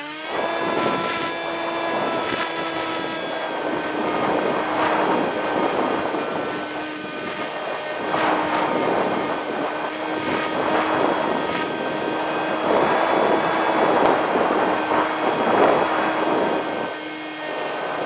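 Bixler RC plane's brushless electric motor and propeller running at a steady high whine, picked up by the onboard camera, with repeated gusts of wind buffeting the microphone.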